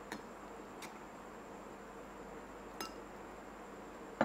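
A few light clinks of a spoon against a glass tumbler while soaked almond gum is spooned in, spread out over the seconds, with the loudest right at the end.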